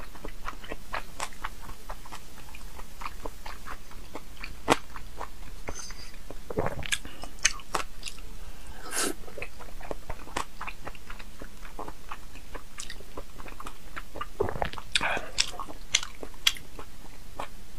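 Close-miked chewing and biting of raw salmon sashimi: wet mouth sounds broken by many short sharp clicks, a few louder than the rest.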